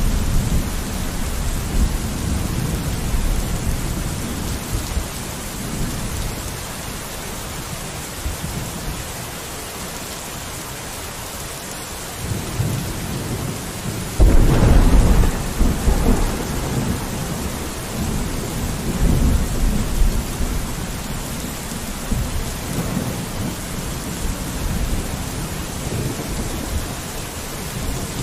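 Steady rain falling against a window, with thunder rumbling low underneath. About halfway through a louder thunderclap breaks in suddenly and rolls on for several seconds before dying away.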